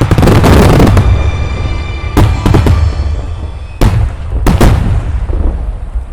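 Large aerial fireworks shells bursting: a heavy burst right at the start, then four more sharp booms at about two, two and a half, four and four and a half seconds in, each trailing off in a rumble.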